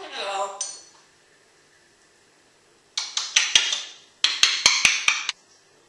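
African grey parrot: a short vocal call at the very start, then two runs of quick, sharp clicks and rattles, a few a second, about three and four seconds in.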